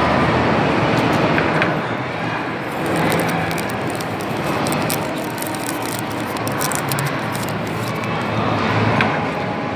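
Steady background din of a busy mall food court, with a run of faint clicks and crackles through the middle.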